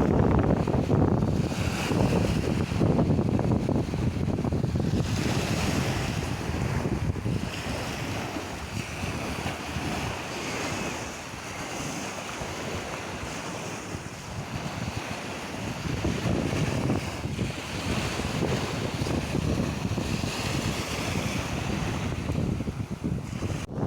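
Sea waves washing ashore, with wind buffeting the microphone in low rumbling gusts; the wind eases in the middle and picks up again toward the end.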